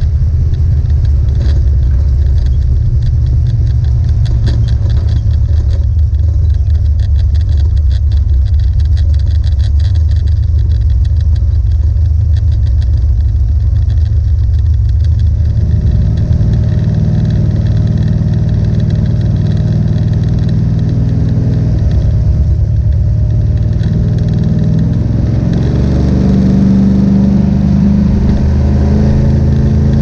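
1970 Plymouth Duster's 440 big-block V8 heard from inside the cabin while driving. The engine note changes about halfway through and rises as the car accelerates near the end.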